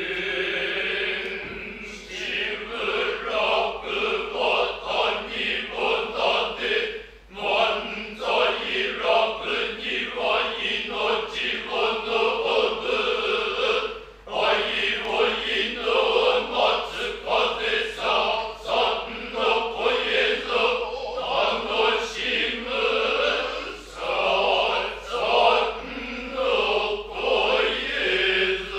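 Noh chorus (jiutai) of men chanting utai in unison, with short breaks for breath about 7 and 14 seconds in.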